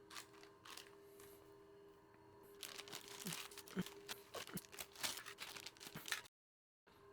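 Plastic packaging and small plastic toy pieces being handled: scattered rustling and light clicks, busier in the second half, over a faint steady hum.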